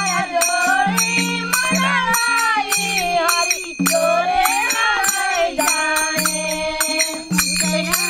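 A group of women singing a Hindu devotional kirtan together, keeping a steady beat of about two strokes a second with hand claps and small hand cymbals whose high ringing carries through the singing.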